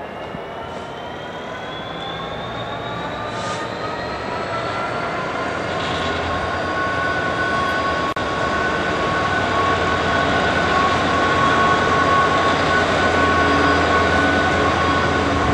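EWS Class 66 diesel locomotive 66232, its EMD two-stroke V12 engine rising in pitch as it works up to power for about the first half, then running at a steady high note. It grows louder as it approaches.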